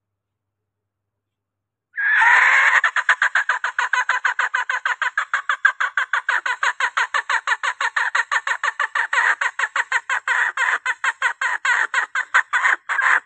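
Female junglefowl's call to a cock: a fast, even run of short clucks, about six a second, starting about two seconds in after dead silence.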